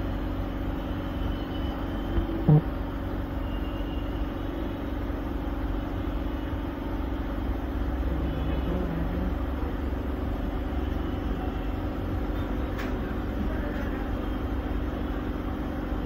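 Steady low background rumble with a faint hum, and one short low tone about two and a half seconds in.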